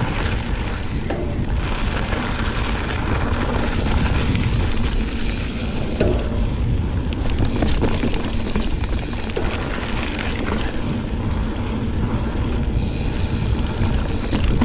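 Giant Fathom 29 mountain bike being ridden on a dirt trail: a steady rumble of wind on the microphone and tyres on the ground, with scattered clicks and rattles.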